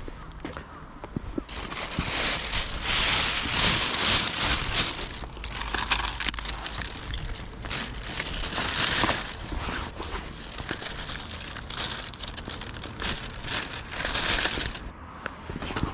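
Thin plastic carrier bag rustling and crinkling as it is handled and litter is put into it, in repeated bouts.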